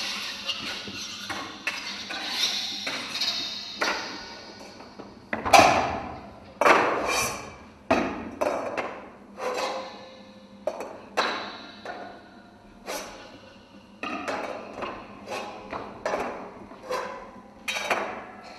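Percussive sound-design score of sharp knocks and clanks, each with a short ringing tail. It starts as a busy patter of small hits, then from about five seconds in gives way to louder single strikes about once a second.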